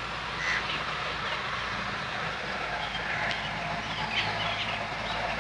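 Birds chirping and calling in short, scattered notes over a steady low hum.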